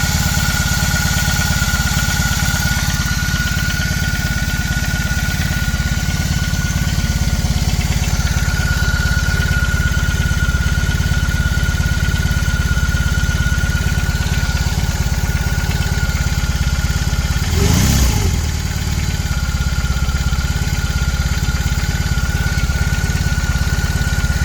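BMW R 18 Classic's 1802 cc boxer twin idling after a cold start, running steadily with a thin high whine over it and one brief swell in the engine sound about three-quarters of the way through. This is the phase in which the owner hears a clattering or knocking from the engine, loud in person but hard to pick out on the recording.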